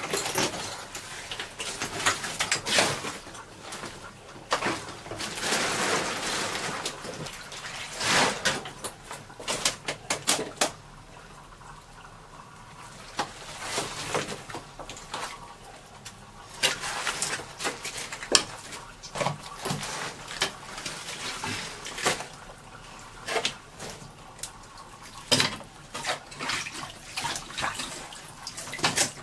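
Hands and a dip net rummaging through wet mud, soggy debris and shallow leftover water: irregular squelches, small splashes and rustles of wet sheeting, with scattered small knocks.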